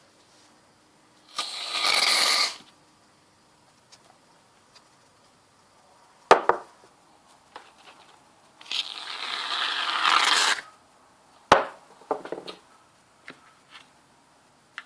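Aerosol shaving foam hissing out of the can twice, once for about a second and once for about two seconds, with a few sharp knocks in between.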